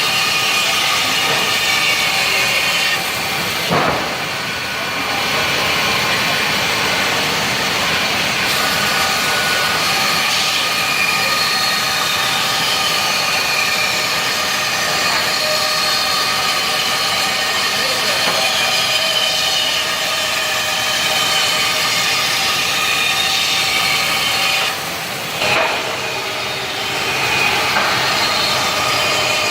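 CNC band saw running and cutting wood: a steady machine whine with several held tones over a sawing hiss. The sound dips briefly twice, about three seconds in and again near the end, each time with a short knock.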